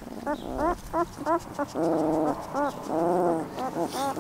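Newborn puppies whining and squeaking, a quick series of short rising-and-falling squeaks, about three a second, with two longer wavering cries about two and three seconds in.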